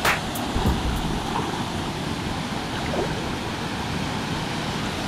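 Waterfall's water pouring, a steady rushing noise with no change, with a couple of short clicks right at the start.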